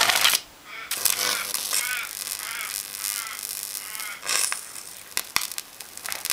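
High-voltage arc from a microwave oven transformer burning across a computer motherboard, crackling with irregular sharp snaps. It drops out briefly just after the start, then crackles on, with a sharp snap a little after five seconds.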